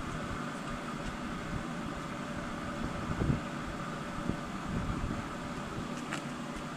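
Steady mechanical hum of a running Expert Grill Commodore pellet smoker's fan, with a faint click about six seconds in.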